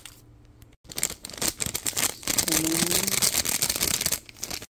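Dense crackling rattle of seasonings being handled and added over the raw pork and chicken in the pot, loud and steady for about four seconds after a short quieter start.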